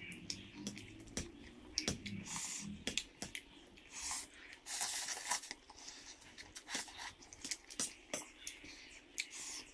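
Close-up eating sounds of noodles and momo: wet chewing and lip smacks with many sharp clicks, and a fork tapping and scraping on the plate.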